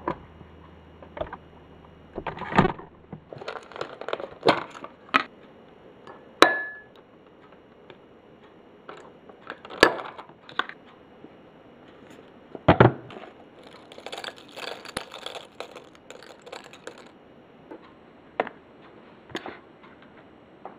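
Kitchen handling sounds while a bowl of cereal with yogurt is made: scattered knocks and clunks of the fridge and containers, a ringing clink of a spoon or dish about six seconds in, and a few seconds of crackling rustle as cereal flakes are poured into the bowl.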